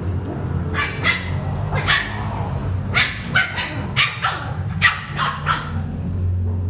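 Small dogs barking in play: about a dozen short, high-pitched barks in quick succession, over a steady low hum.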